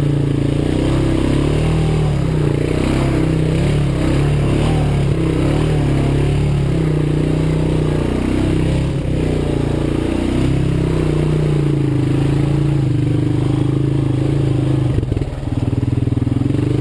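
Honda TRX 350 Fourtrax ATV's single-cylinder four-stroke engine running under way, its pitch wavering with the throttle and dipping briefly twice, about nine and ten seconds in. A few knocks and rattles come about fifteen seconds in.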